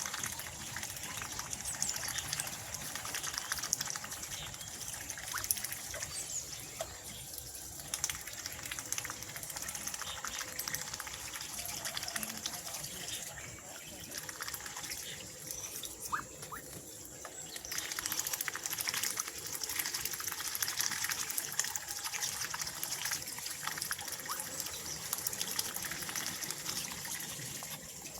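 Water trickling and splashing steadily, with many small ticks and splashes.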